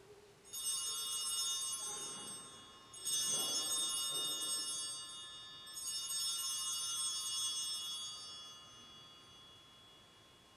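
Altar bells (consecration bells) rung three times, each a bright jangle of many high tones that fades over a couple of seconds. This marks the elevation of the consecrated host at Mass.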